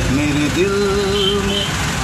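A man singing a slow melody with long held notes, heard inside a bus cabin over the steady low rumble of the bus engine running.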